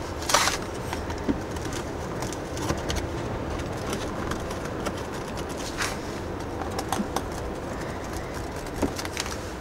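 Light handling sounds of stiff grey kraft board on a work surface: a couple of brief rustles or scrapes, about half a second in and again about six seconds in, and a few faint clicks, over a steady low background hum.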